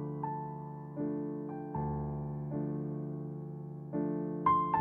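Background music: a slow, gentle piano piece, single notes and chords struck about once a second and left to ring and fade.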